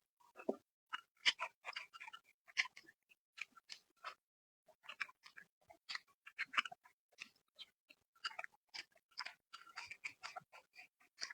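A person chewing and crunching food: a dense, irregular run of short wet clicks and crackles, with a brief pause about four seconds in.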